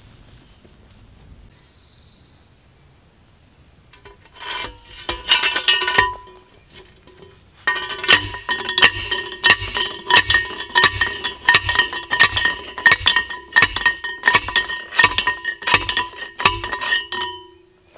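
Hand post driver hammering a steel T-post into the ground: a short burst of metal clangs, then a long steady run of about two ringing clangs a second that stops shortly before the end.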